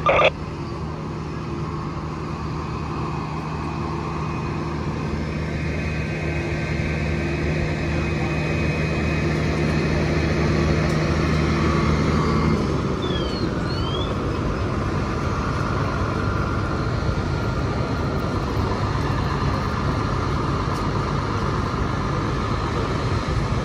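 Fire truck's diesel engine idling with a steady low hum, which gives way about halfway through to a louder, even rush of street and traffic noise.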